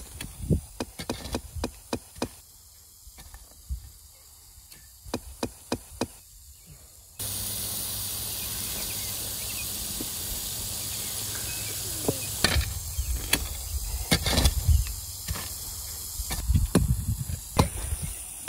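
Repeated irregular thuds and knocks of hand digging tools striking soil while planting holes are dug. About seven seconds in, the background hiss steps up abruptly.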